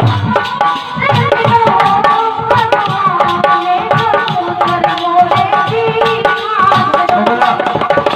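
Folk music interlude between sung verses: fast hand-drum strokes under a wavering melodic line played by an instrument.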